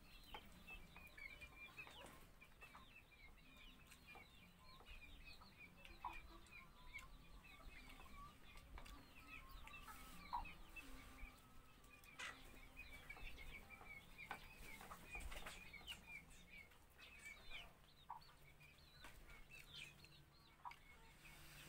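Faint, continuous clucking and chirping of free-ranging village chickens, with a few light sharp clicks, such as spoons tapping steel plates.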